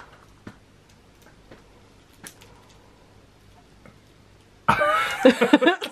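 Faint, scattered clicks as a plastic Tangle twist toy is taken from its box and handled, then a man's voice about four and a half seconds in.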